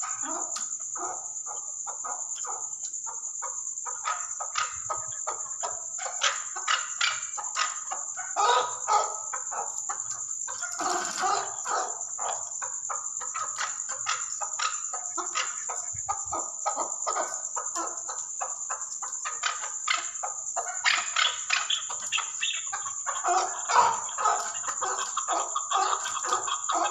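Chukar partridge calling: repeated rapid clucking chuck notes in bouts, coming thickest in the middle and near the end.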